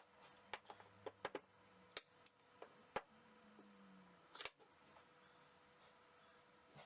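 Faint, irregular light clicks and taps, about a dozen of them, like small objects being handled.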